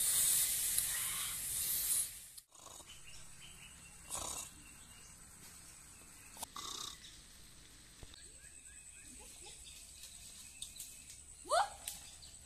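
Octopus frying in a wok over a wood fire: a loud sizzle for about two seconds that stops abruptly. Then it is fairly quiet with a few faint sounds, and near the end a short rising snore.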